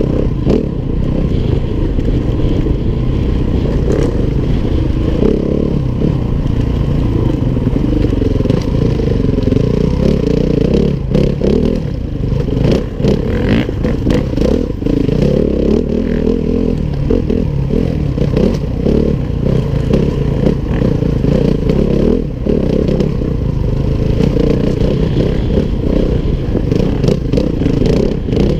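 Four-stroke enduro motorcycle engine running close to the helmet-mounted microphone, its note wavering with the throttle on a rough trail. Scattered knocks and rattles come from the bike bouncing over rocks and branches.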